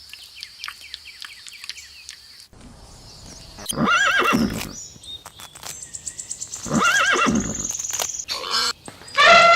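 Horse whinnying twice, each whinny about a second long with a wavering, rising-and-falling pitch. Just before the end a different loud call begins.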